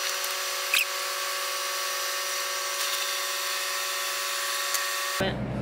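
Motorhome slide-out mechanisms running as the four slide rooms extend: a steady mechanical whine with a single click about a second in.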